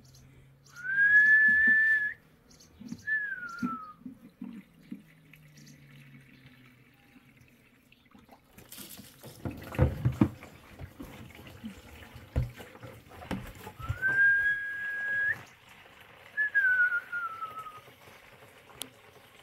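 A person whistling a two-part phrase, heard twice: a note that rises and is held steady, then a falling glide. Between the two phrases comes a burst of clattering knocks.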